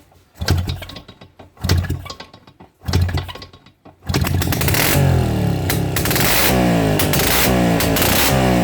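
Soviet 2SD two-stroke engine, running on petrol poured in without a carburettor, being cranked: three brief bursts about a second apart, then it catches about four seconds in and keeps running steadily with rapid firing.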